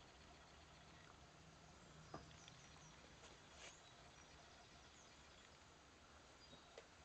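Near silence: room tone, with a few faint clicks.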